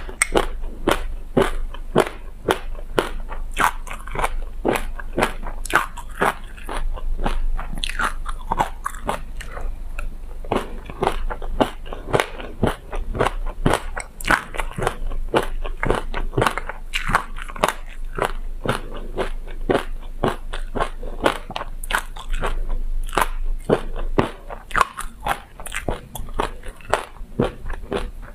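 Close-miked chewing and crunching of a mouthful of sesame seeds with passion fruit: a dense, continuous stream of small crackles and clicks.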